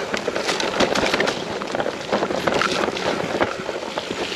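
Mountain bike riding down a rough, rocky trail: tyres crunching over stones and the bike rattling with many small knocks, with wind buffeting the microphone.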